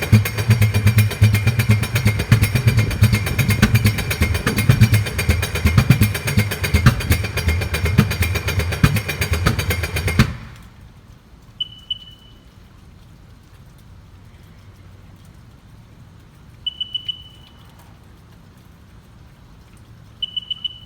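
The starter cranks the 2005 Sea-Doo RXT's freshly rebuilt engine for about ten seconds with irregular pops, and the engine does not catch. The owner says it almost sounds like it is backfiring, although spark, fuel, timing and 160 psi compression in all cylinders check out. The cranking then stops, and three short high electronic beeps follow several seconds apart.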